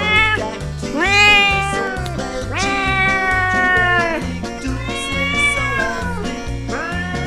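Domestic cat meowing again and again, long drawn-out meows about one every one and a half seconds, each rising, holding and dropping away, over background music with a steady beat.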